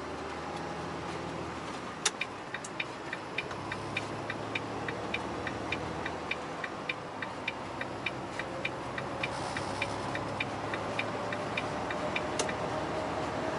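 Turn-signal indicator clicking steadily inside a truck cab, about three clicks a second, starting about two seconds in and stopping near the end, over the steady hum of the engine and road.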